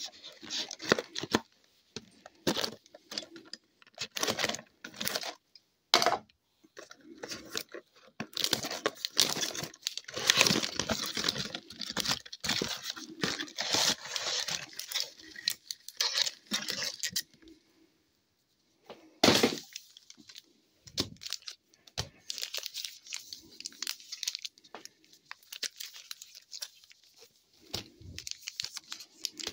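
Plastic shrink-wrap being slit and torn off a retail box of hockey cards, with crinkling plastic and the cardboard box being handled in irregular bursts. A single sharp knock about 19 seconds in.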